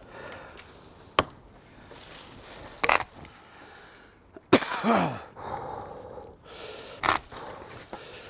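A man out of breath, gasping and sighing, with a long falling groan about halfway through. A few sharp knocks, like objects set down on a hard surface, come before and after.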